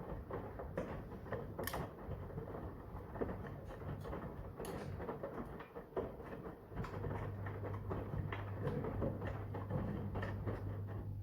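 Brandt washing machine tumbling a wet wash load, with irregular knocks and splashing as the laundry drops in the drum. A steady low hum comes in about two-thirds of the way through.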